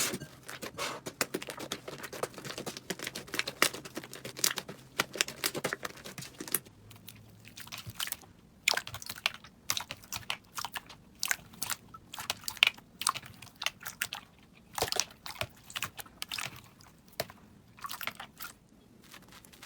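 Slime being squeezed and poked by hand, giving a run of crackling, popping clicks. They come thick and fast for the first six seconds or so, then thin out to scattered pops.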